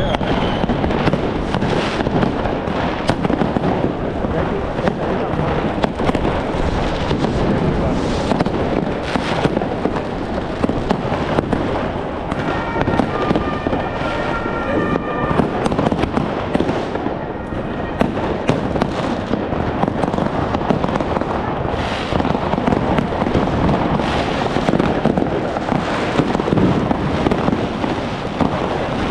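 Many fireworks and firecrackers going off at once: a continuous dense crackling and banging, with a short steady pitched tone about halfway through.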